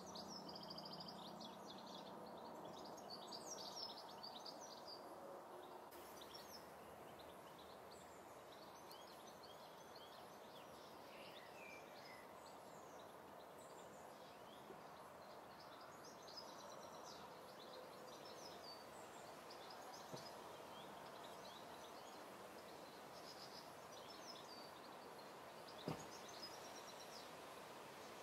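Quiet ambient hiss with faint birds chirping in the distance throughout, and a single sharp click near the end.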